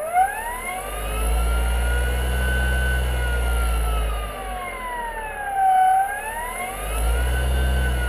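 Brushless DC motor running under an HPC series motor controller, giving a whine whose pitch follows the motor's speed. The whine rises as the motor speeds up, dips about five to six seconds in, and rises again near the end, over a low hum.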